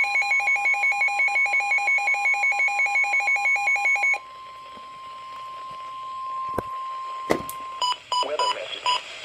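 NOAA Weather Radio warning alarm tone, a steady 1050 Hz tone signalling that a warning is about to be broadcast. For the first four seconds a weather radio receiver's alert beeps rapidly over it, about ten beeps a second. Two sharp clicks and a few short beeps come near the end.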